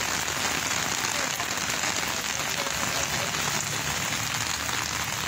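Steady rain falling, an even, dense hiss with no breaks.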